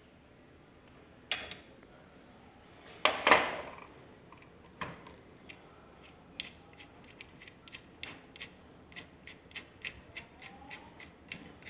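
White plastic burette clamp being handled and fitted: a few sharp clicks and knocks, the loudest about three seconds in, then a run of light, evenly spaced clicks, about three a second, through the second half.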